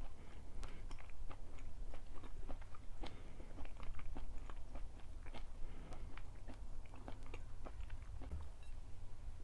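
A person chewing and biting food close to the microphone, many small irregular clicks and smacks, over a low steady hum.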